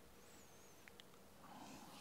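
Near silence: room tone, with a faint thin squeak, two light ticks about a second in, and a soft scratch near the end, as of chalk on a blackboard.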